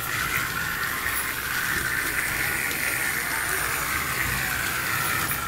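Battery-powered Thomas toy train running around a plastic track, its small motor and gears giving a steady whir that rises and falls a little in pitch.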